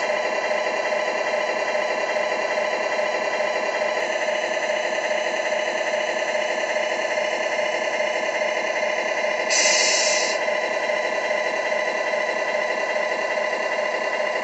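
Steady idling truck-engine sound, with a short hiss of air about ten seconds in. It comes from the RC model truck's sound module.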